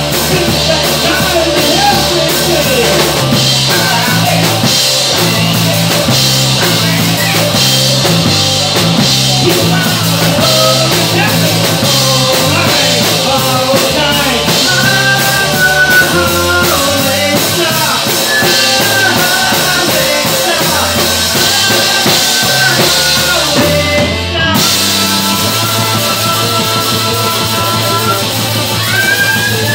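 Live rock band playing loud: electric guitar, drum kit with cymbals and a singer's voice over a moving bass line.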